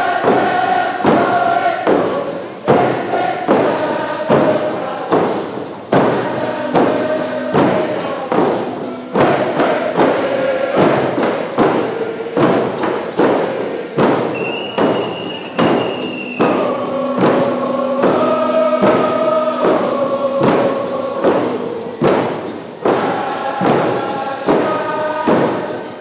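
Many painted frame drums beaten together in a steady, even beat while a large group of voices sings a Nisga'a drum song.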